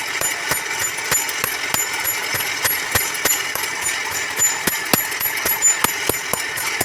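Hammer blows on iron at an anvil, about three strikes a second, each with a short metallic ring, as a blade is forged by hand.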